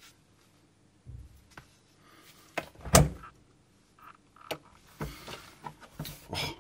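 Front-loading washing machine door worked on its newly fitted hinge. A small click and a loud clack come about three seconds in, then lighter clicks and knocks as the door swings open.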